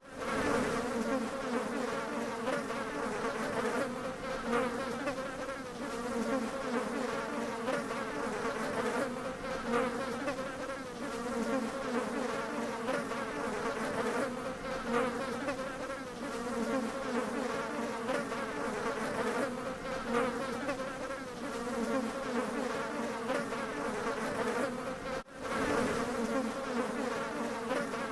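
Bees buzzing in a steady, wavering drone. The buzz cuts out for an instant near the end.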